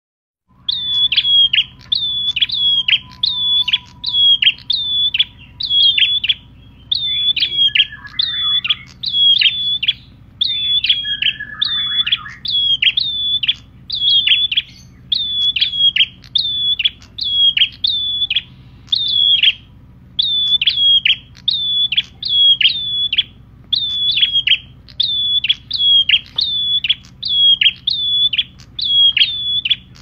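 Caged albino perenjak, a small prinia-type songbird, calling with loud, sharp, high chirps repeated about one and a half to two a second in runs with short pauses. A low steady hum runs underneath.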